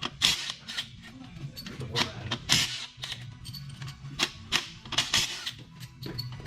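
Irregular metallic clicks and clacks from hand tools and engine parts being handled during an engine teardown, over a low steady hum.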